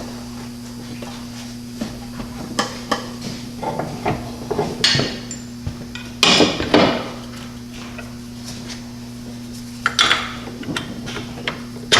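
Irregular metallic clanks, clicks and knocks of hand tools and suspension parts being handled during a coilover install, loudest in a cluster about halfway through, over a steady low hum.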